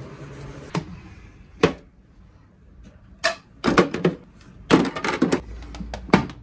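Irregular clicks and knocks of small objects being handled, some single and some in quick clusters, over a low room hum.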